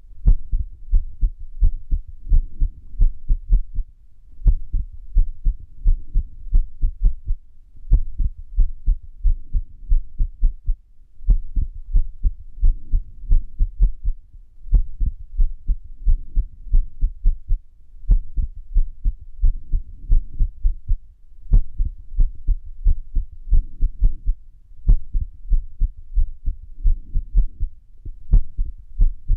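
Human heart sounds with an irregular rhythm, the sign of an arrhythmia: quick low thumps come in uneven runs, broken every few seconds by a short pause.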